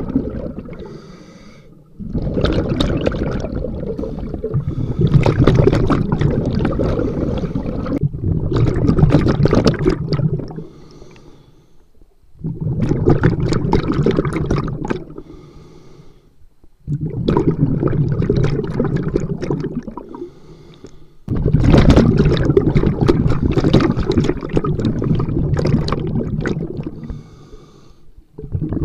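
A scuba diver breathing through a regulator underwater, heard from a camera on the diver's own mask: long, loud bubbling exhales alternate with short, quieter inhales in a slow, even cycle, with about five exhale bursts.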